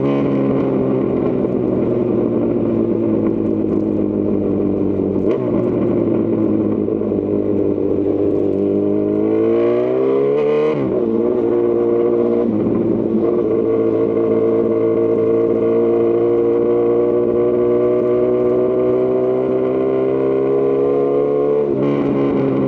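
2018 Honda CB1000R's inline-four engine through a Lextek CP1 full aftermarket exhaust, under way. The revs sag slowly at first, climb quickly about ten seconds in and drop sharply. They then hold nearly steady with a slow rise until another drop near the end.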